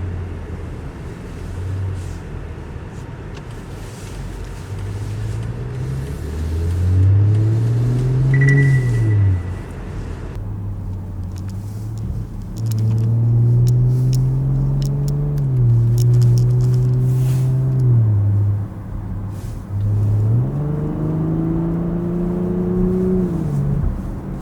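BMW X5 50e's turbocharged 3.0-litre inline-six through a DCE Parts V2 exhaust with its valves open, pulling under acceleration three times. Each time the revs rise and then drop away as the throttle is lifted.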